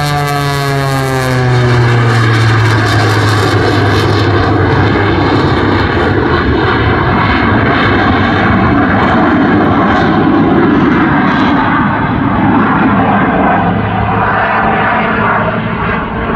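Jet Waco biplane in flight, its Pratt & Whitney R-985 radial engine and propeller running together with a GE CJ610 jet engine. The engine note drops in pitch over the first couple of seconds, then settles into a steady, loud mix of propeller drone and jet noise.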